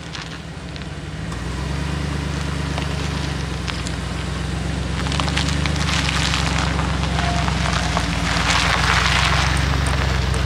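Chevrolet pickup truck's engine running at low speed as it pulls a boat trailer up the ramp, getting louder as it comes closer. Many small crackling clicks on top, denser in the second half, as the tyres roll over grit on the concrete.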